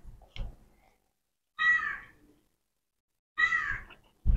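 Two short animal calls, about half a second each and nearly two seconds apart, each a clear pitched cry that falls slightly. Soft chewing sounds come in the first half second.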